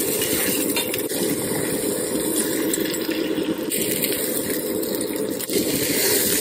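Beaten egg sizzling in a stainless frying pan on an induction hob, with a metal spatula scraping and tapping the pan now and then as the omelette is rolled.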